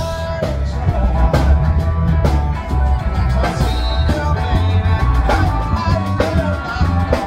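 Live band playing a rock-and-roll number: electric guitars and keyboard over bass and a steady drum beat.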